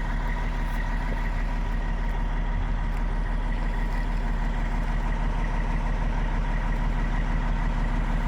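Semi truck's diesel engine idling steadily, with a thin steady whine above the engine note.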